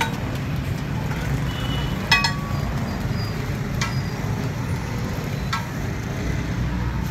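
Steady rumble of street traffic, with motorbikes and auto-rickshaws passing. Three short, sharp ringing sounds come about two, four and five and a half seconds in, the first the loudest.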